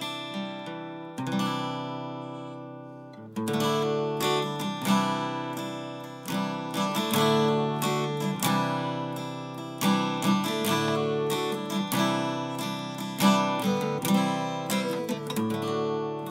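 Acoustic guitar playing an instrumental introduction to a song, softer at first and becoming louder and fuller with strummed chords about three seconds in.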